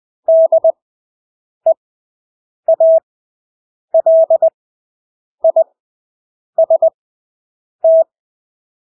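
Morse code (CW) practice tone: a single steady beep keyed into dots and dashes, sent at 20 words per minute with extra-long Farnsworth spacing, so each character stands alone with about a second of quiet between characters. About seven characters are sent.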